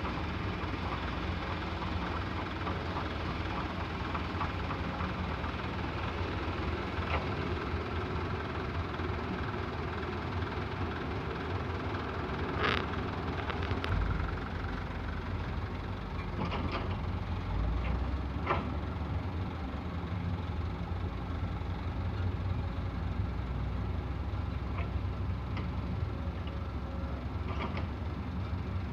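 Excavator's diesel engine running steadily, with a few sharp knocks standing out near the middle.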